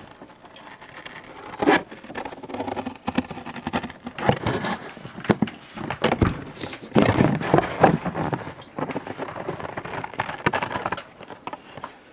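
Cardboard Funko Pop box being cut and pulled apart close to the microphone: irregular snips, scrapes, creaks and rustles of the cardboard panels.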